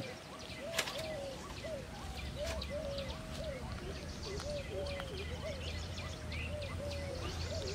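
Outdoor birdsong: one bird repeating a short, low call over and over, a few times a second, with other birds chirping higher up.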